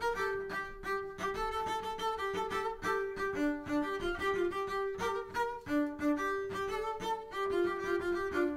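Background instrumental music: strings playing a busy melody of short notes that change several times a second.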